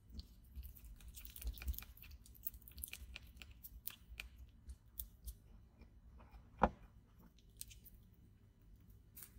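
Silicone spatula stirring a sticky clear slime mixture in a small glass bowl, giving faint wet crackling and clicking sounds for the first few seconds. One sharper knock about six and a half seconds in, and a few light clicks near the end.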